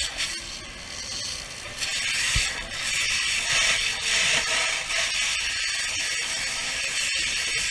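Water from a fire hose spraying onto burning debris: a rushing hiss that swells and fades, with scattered crackles and clicks.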